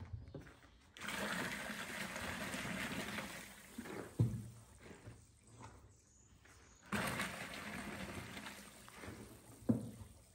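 Wet plaster mix sloshing in a large plastic tub as it is stirred by hand, in two spells of about three seconds that start abruptly, each ending with a short thump against the tub.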